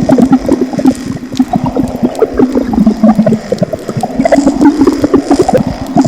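Liquid boiling in a pot, with bubbles popping rapidly and unevenly.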